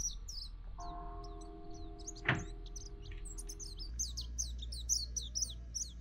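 Small birds chirping continuously in rapid, high, short down-slurred notes. A single sharp knock sounds about two seconds in, and a faint steady hum lasts through the first half.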